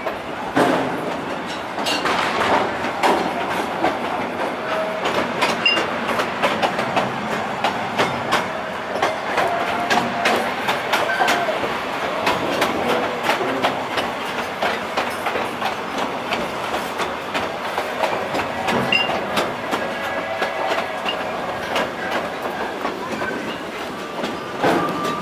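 Cedar Point's train heard from aboard an open passenger car, running steadily along the track with its wheels clicking over the rail joints.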